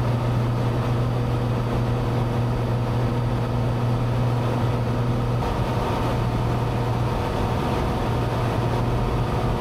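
Single-engine Cessna 182's piston engine and propeller running steadily in flight, heard inside the cabin as a constant low drone. A little past halfway its tone shifts slightly.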